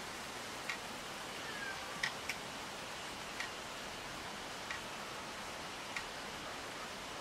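Steady hiss of outdoor forest ambience with short, sharp ticks about every second and a half, the loudest about two seconds in, and one brief falling whistle just before it.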